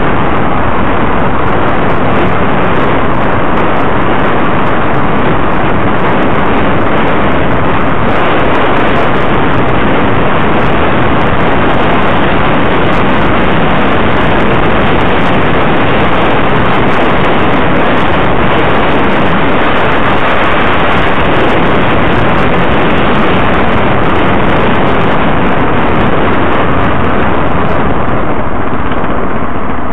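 Loud, steady rush of wind and road noise on the microphone of a camera riding along a concrete road in traffic.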